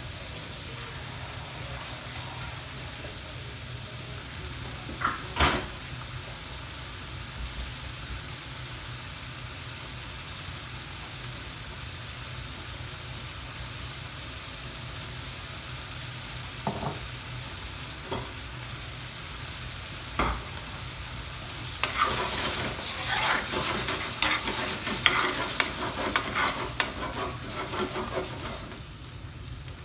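Curry frying in a pan with a steady sizzle, and now and then a single knock of a spoon against the pan. About two-thirds of the way in, brisk stirring starts, with quick scraping and clicking of the spoon in the pan, and goes on until near the end.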